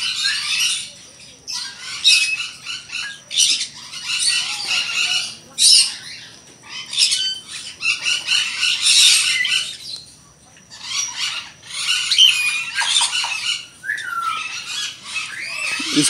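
Cockatiel squawking: harsh, raspy screeches repeated over and over, with a short lull about ten seconds in.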